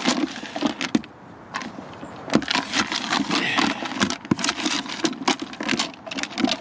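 A baiting spoon stirring a mix of pellets, boilies and sweetcorn in a bait bucket: irregular rattling and scraping clicks of the baits against the spoon and bucket, with a short lull about a second in.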